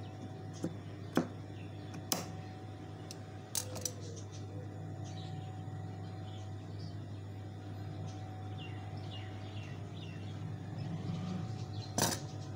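Scissors snipping through an embroidered lace border, a few sharp clicks in the first few seconds, then soft fabric handling over a steady low hum. Faint bird chirps in the background, and a louder tap near the end.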